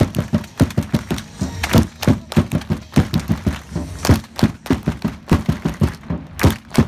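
Football supporters clapping in rhythm close by, several sharp claps a second.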